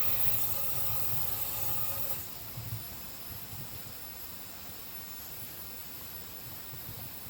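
Propane gas burner firing in a steam boiler's firebox, a steady rushing noise that drops in level about two seconds in.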